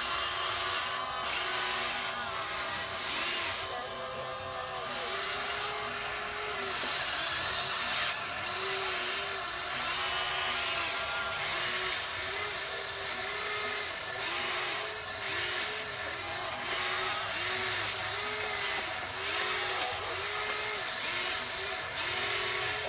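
Electric motors of an RC excavator whining in repeated short pulses, rising and falling in pitch about once a second as the controls are worked, over a steady hiss.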